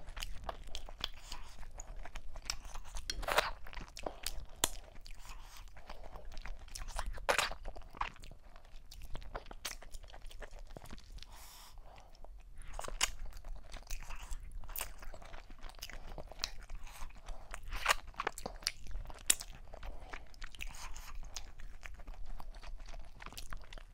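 Close-miked eating sounds of a woman eating fufu with okra soup, turkey meat and cow skin by hand: chewing and wet mouth smacks with irregular sharp clicks.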